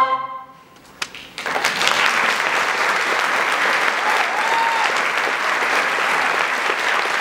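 A choir's final held chord cuts off just after the start and rings out in the hall. After about a second of quiet the audience breaks into steady applause.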